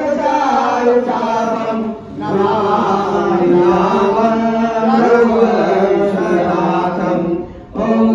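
Male voices chanting a Hindu devotional prayer in long, held phrases, pausing briefly about two seconds in and again near the end.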